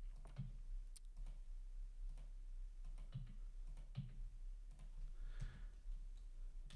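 Faint computer keyboard keys being pressed in an irregular run of single clicks while code is edited, over a low steady hum.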